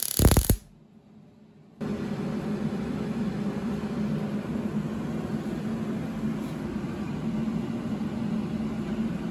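MIG welder crackling, cutting off suddenly about half a second in. After a second of quiet, a steady low whirring machine hum sets in and runs on.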